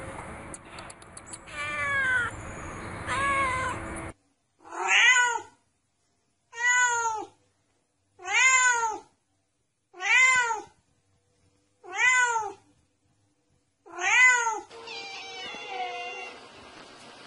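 A domestic cat meowing again and again, each meow rising then falling in pitch. A couple of meows come over a background hiss, then six meows alike in shape about every two seconds with silence between, then softer meows near the end.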